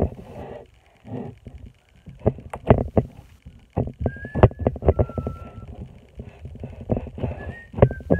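Butter slime being squished and stretched by hand: irregular soft squelches and small pops, thinning out around the first two seconds and coming thick and fast after that.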